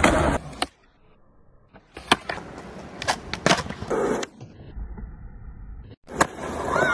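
Skateboard wheels rolling on concrete, with a series of sharp wooden clacks from the board popping and landing tricks. The sound drops almost to nothing for about a second near the start.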